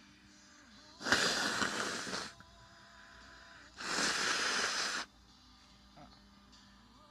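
A person blowing their nose twice, two long forceful blows about a second apart, each lasting just over a second, over faint background music.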